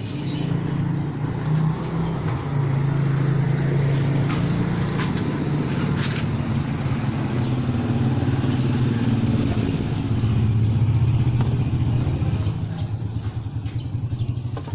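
A vehicle engine running steadily, getting louder over the first few seconds and easing off near the end, with a few light clicks over it.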